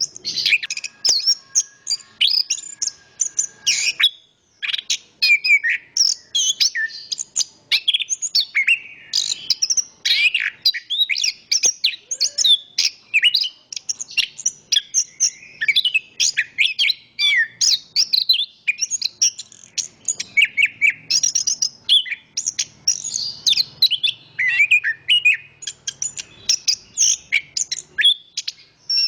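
Chestnut-backed thrush (anis kembang) singing a continuous, rapid, varied song of short high chirps and trills, with a brief pause about four seconds in.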